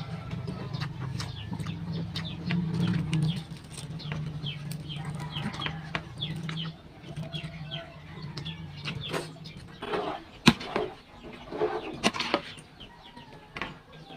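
Birds chirping in many short, quick chirps over a steady low hum, with a few sharp clicks and knocks in the later part.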